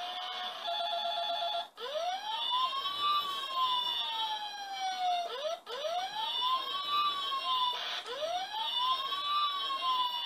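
ELC toy fire engine's electronic sound effects, set off by its push buttons: a short run of steady beeping tones, then a siren wail that rises and falls, repeating three times.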